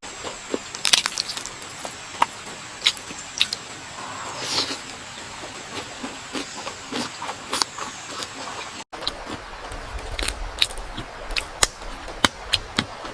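Close-miked crunchy eating sounds: irregular sharp crackles and crunches of food being bitten and chewed, with a brief dropout about nine seconds in.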